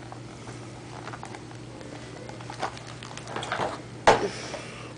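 Light scratching and rustling on cardboard packaging as the box is handled, with a sharp knock about four seconds in.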